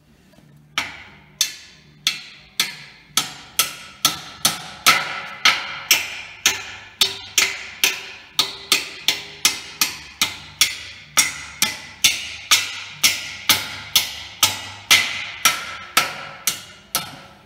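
Repeated hammer blows, about two a second and very even, driving something into the top of an engine hoist to stiffen its leg, each blow ringing briefly.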